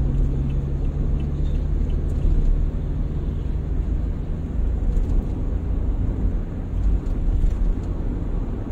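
Steady low rumble of a car driving along a highway, heard inside the cabin: engine and tyre noise. A low hum of a container truck alongside fades out in the first couple of seconds as the car draws past it.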